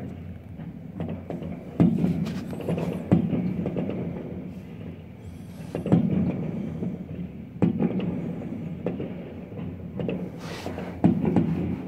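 Aerial fireworks shells bursting: a series of booms, one every second or few seconds, each trailing off in a long rumble.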